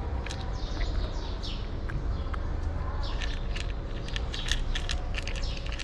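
Cat crunching dry kibble close up: irregular clusters of quick, crisp crunches, with small birds chirping in the background over a steady low rumble.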